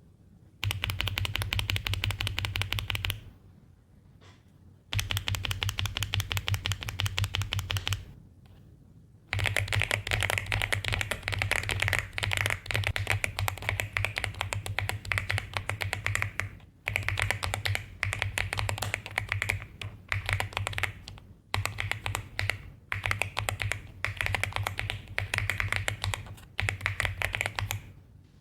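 Fast typing on a LOGA Yaksa 75Al aluminium-cased mechanical keyboard: dense runs of rapid keystrokes lasting a few seconds each. The runs are split by short pauses, which become more frequent in the second half.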